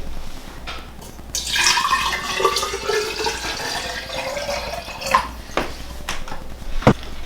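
Water running and splashing for a few seconds, then a few sharp knocks, the loudest near the end.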